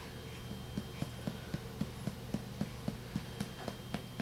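Steady, soft patting on a baby's back to bring up a burp, about four pats a second, with no burp yet. A low steady hum runs underneath.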